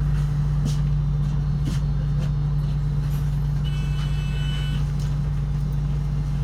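Route bus running, heard from inside the cabin: a steady, loud low engine and road drone with a few light rattles. About four seconds in, a short high-pitched tone sounds for about a second.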